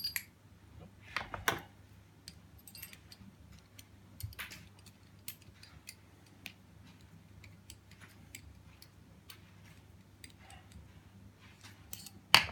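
Sparse light metallic clicks and ticks as a screw is driven back into a steel padlock and its small parts are handled during reassembly. There is a sharper click about one and a half seconds in and a louder knock near the end.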